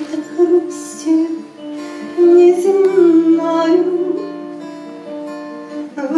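Instrumental break between verses of a song: acoustic guitar accompaniment with held notes and a moving melody line.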